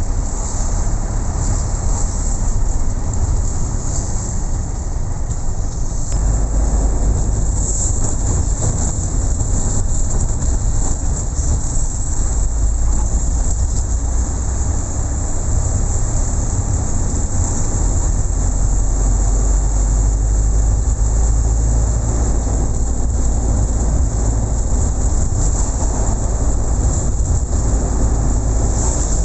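Steady rumble and hiss of a moving vehicle, heard as continuous travel noise with the low rumble growing stronger about six seconds in.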